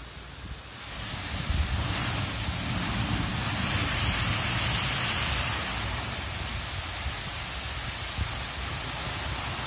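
Steady rush of white water cascading down a sloping weir-like drop, setting in about a second in and holding level.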